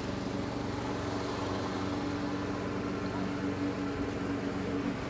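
Lawn mower running steadily, with an even, unchanging pitch.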